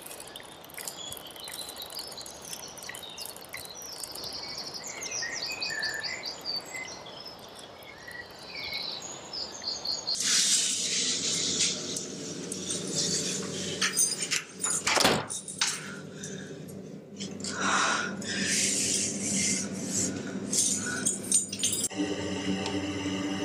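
Birds chirping and trilling over a steady outdoor hiss. About ten seconds in this cuts abruptly to a louder, dark soundtrack of sustained low tones broken by sharp clicks and knocks.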